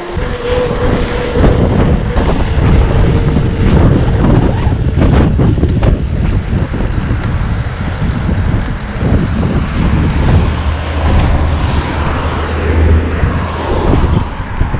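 Wind buffeting the microphone of a bike-mounted action camera while cycling on a paved road, a loud, gusty rush with road noise from the tyres and a few knocks from bumps.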